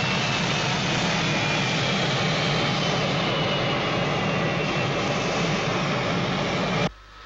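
Eagle spacecraft's engine thrusters during a landing: a steady jet-like rushing roar with a faint whine that slowly falls in pitch, cutting off suddenly near the end as the craft settles onto the pad.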